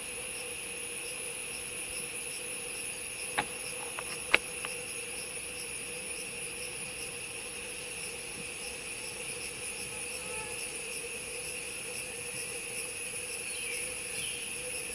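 Steady chorus of forest insects, a continuous high-pitched trilling drone at several pitches. Two sharp clicks come about a second apart, three to four seconds in.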